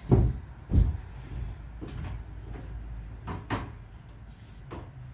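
Two heavy, dull thumps under a second apart, then a few lighter knocks and clatters as things are handled and set down on a wooden workbench.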